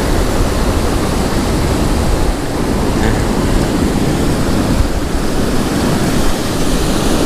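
Ocean surf breaking and rushing up the beach, mixed with wind buffeting the microphone: a loud, steady rush of noise.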